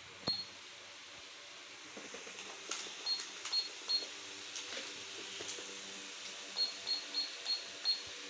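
Toy cash register's keypad beeping as its buttons are pressed: short, high electronic beeps, one at first, then three, then a quick run of about six, with faint plastic key clicks.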